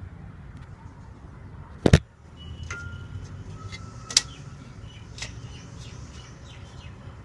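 A few sharp knocks over a low steady rumble. The loudest is a quick double knock about two seconds in, with two more about two and three seconds later. Faint bird chirps sound between them.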